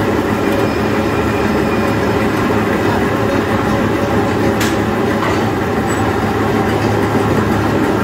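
Carrot washing and peeling machine running, its roller brushes turning a load of carrots: a steady mechanical noise with a low hum. A single sharp click about four and a half seconds in.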